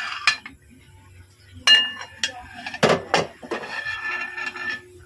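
Aluminium cooking-pot lid being lifted off the pot: several sharp metal clanks that ring briefly, then a run of rattling and clinking near the end.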